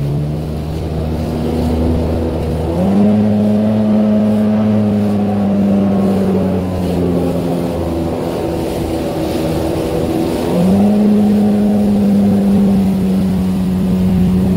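Jet ski engine running at speed, its pitch jumping up as the throttle is opened about three seconds in and again about ten and a half seconds in, then easing back a little. The hull's rush through the water hisses underneath.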